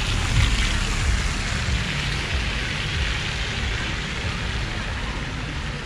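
Steady outdoor background noise: an even hiss with an uneven low rumble, easing slightly over a few seconds.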